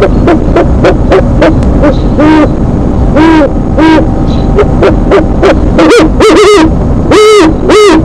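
Great horned owls hooting back and forth at the nest: a run of short, low hoots about a second apart, louder near the end, very close to the microphone.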